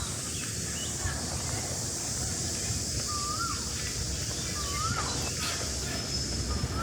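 A bird calling outdoors: short whistled notes that rise and fall, repeated every second or few, over a steady high hiss and a low rumble.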